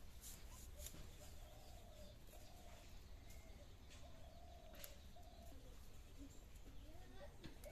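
Faint bird calls, a string of short low-pitched calls from village fowl, over quiet room tone, with a few sharp clicks as onions are cut on a boti blade.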